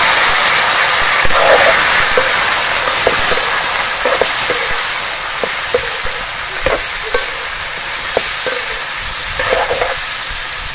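Chunks of boiled pork frying in rendered pork fat in a metal wok: a loud, steady sizzle. A metal ladle knocks and scrapes against the pan every second or so as the meat is stirred.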